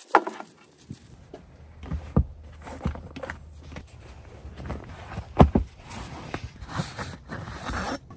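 Kitchen gear being handled: a string of knocks, clicks and scrapes as items are set down and a waxed-canvas knife roll is untied and unrolled, with rustling of the canvas near the end. One sharp knock about halfway through is the loudest.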